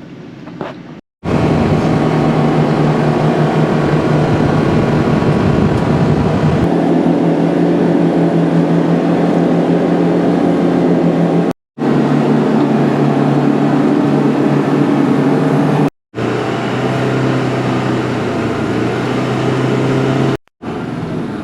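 Motor vehicle running at a steady speed, a steady engine note over road noise. The engine note shifts to a different pitch about a third of the way in, and the sound is broken by four brief, abrupt silences.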